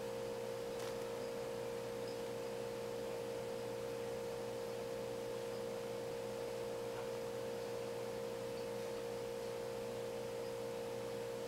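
A steady, even hum with a clear pitch that does not change.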